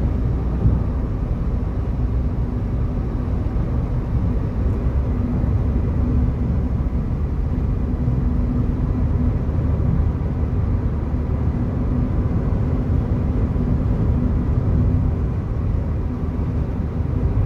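Steady low rumble of wind and road traffic noise, with a faint constant hum.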